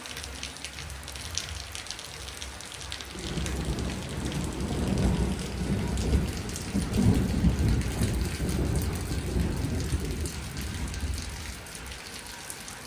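Steady rain falling and dripping on wet pavement, with a long roll of thunder that starts about three seconds in, swells, and fades away near the end.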